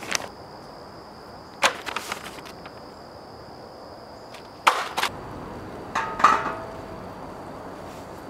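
Handling of steel fire pit parts and their hardware pack: scattered sharp knocks and rattles, with louder ones about halfway through and a knock about six seconds in that rings briefly like metal.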